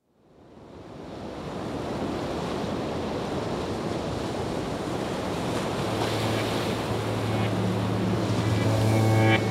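Ocean waves washing on a shore, fading in from silence over the first second or two. A low sustained musical note enters about six seconds in, and more music tones join near the end.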